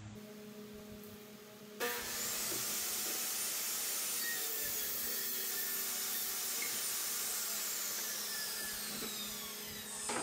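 A corded power saw cutting into wood, starting sharply about two seconds in and running steadily for about eight seconds.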